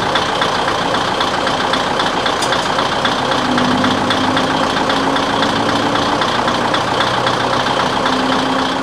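Diesel engine of a Kominato Railway KiHa 200-series railcar idling close by, a steady clattering run with a low hum that comes in about three seconds in.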